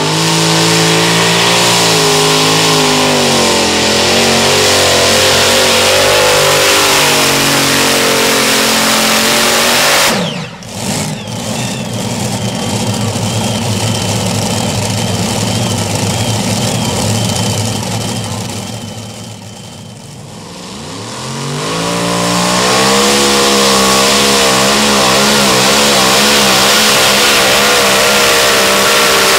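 Supercharged multi-engine modified pulling tractors running at full throttle under load while pulling a sled. The engines climb in pitch, then break off abruptly about ten seconds in. A rougher stretch follows with a steady high whine over it, and after a dip about twenty seconds in, another modified tractor's engines rev up and hold a high, wavering pitch.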